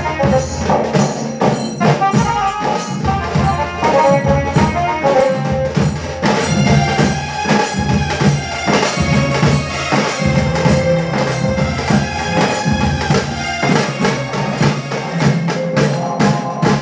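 Tasa drum band music: fast, dense drum strokes with a melody line over them.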